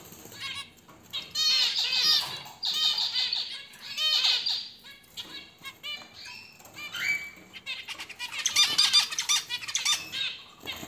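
A cage of zebra finches calling and singing: rapid bursts of short, nasal, stacked calls and song phrases that come in clusters several times, with wing flutters as the birds move about.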